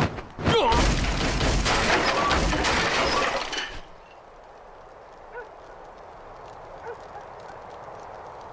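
A man's shout, then a loud crashing, shattering noise that goes on for about three seconds and cuts off suddenly about four seconds in, leaving a quiet background.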